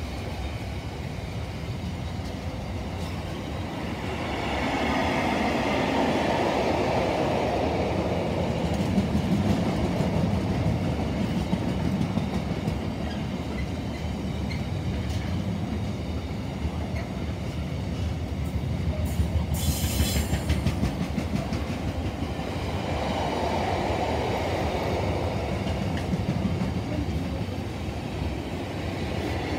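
Container wagons of a freight train rolling past, the wheels rumbling and clattering over the rails, swelling in loudness twice as groups of wagons go by. There is a brief high-pitched screech about twenty seconds in.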